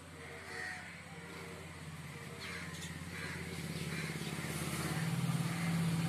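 A motor vehicle's engine running with a low hum that grows louder toward the end, while small birds chirp now and then.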